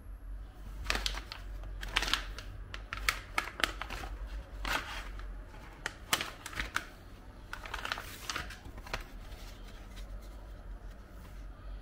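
Irregular handling noises: a run of short rustles and clicks between about one and nine seconds in, then it settles.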